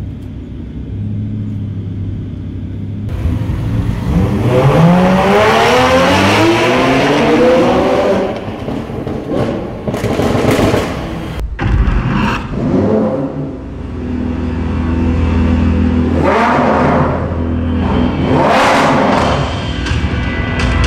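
A supercar engine revving hard, its pitch climbing steeply, with two more sharp revs near the end, over background music with a steady bass line.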